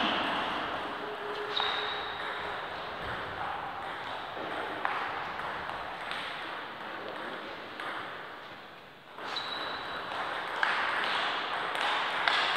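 Table tennis ball striking bats and the table: scattered sharp clicks about a second or two apart, some with a brief high ring.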